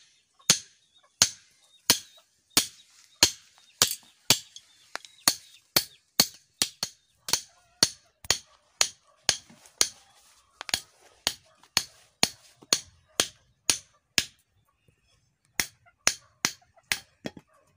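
Claw hammer pounding the end of a stainless steel speargun spear rod laid on a round iron plate, a steady run of sharp metallic blows about two a second, with a short pause near the end before a few more.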